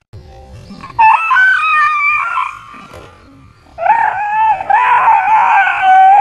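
Dog howling, two long, high, wavering cries: the first about a second in, the second from about four seconds in and longer.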